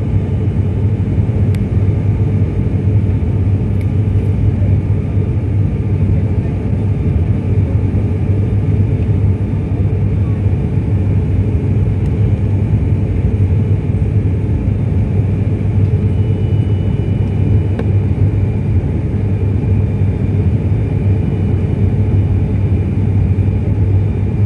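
Steady drone of an ATR 72 turboprop airliner's engines and propellers heard inside the passenger cabin, dominated by a constant low hum.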